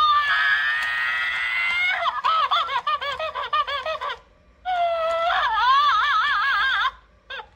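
Interactive plush crying monkey toy's recorded voice crying out through its small speaker as its banana is kept from it. Each stretch opens with a long rising wail and then turns into a fast, wavering warble. This happens twice, with a short break about four seconds in, and ends in a few brief cries near the end.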